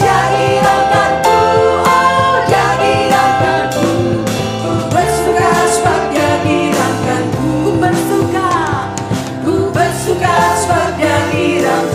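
Worship band performing a praise song, with sung vocals over full band accompaniment and a steady beat.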